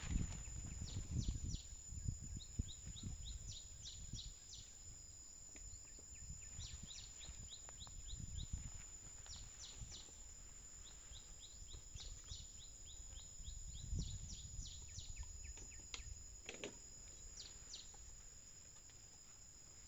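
Low rustling and crackling of leafy plants as an Asian elephant pulls and eats vegetation, strongest near the start and again about eight and fourteen seconds in. Under it run a steady high insect drone and repeated clusters of short bird chirps.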